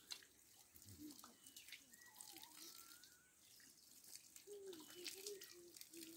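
Faint water trickling and dripping from the tap of a handwashing bucket onto hands and the ground, with many small splashing ticks.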